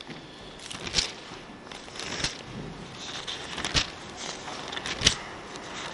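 Paper pages of a Bible rustling and flicking as they are leafed through to find a passage, in a string of short crisp rustles. The loudest comes about five seconds in.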